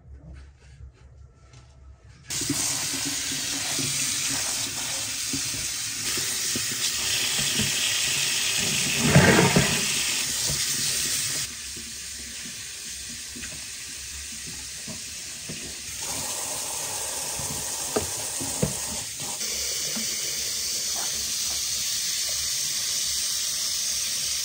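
Water running steadily. It starts abruptly about two seconds in, swells louder briefly about nine seconds in, and steps down and up in level abruptly a few times.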